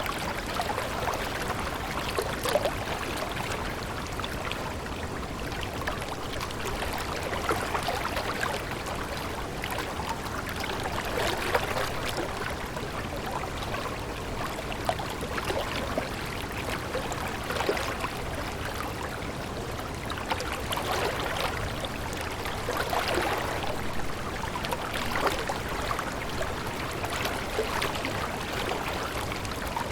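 Water of a small stream babbling and trickling steadily, with many small irregular splashes.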